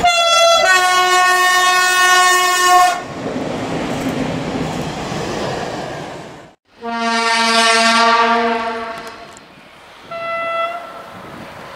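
Railway locomotive horns: a long horn blast that changes note half a second in and lasts about three seconds, then train rumble, a sudden cut, and a second long horn of about two seconds. Near the end a short, fainter horn note sounds over a steady diesel rumble.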